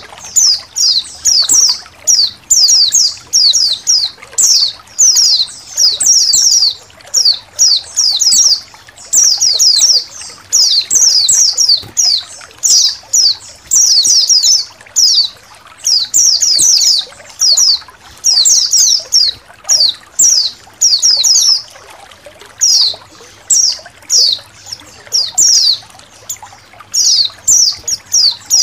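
A flock of pleci (white-eyes) chirping continuously in quick runs of high-pitched notes, over a background of trickling water.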